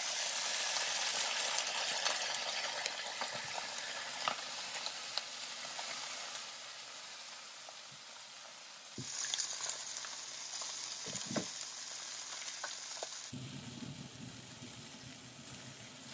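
Skin-on fish fillets sizzling in hot oil in a frying pan. The sizzle is loudest at the start and slowly fades, then flares up again about nine seconds in, with a few light knocks in between.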